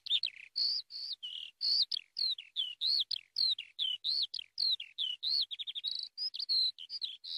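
Eurasian skylark singing: an unbroken, rapid stream of slurred, warbled whistles, with quick trills a little past the middle.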